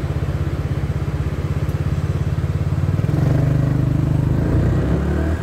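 Honda Biz scooter's single-cylinder four-stroke engine idling with an even, rapid pulse, then revving up about three seconds in as it pulls away in first gear.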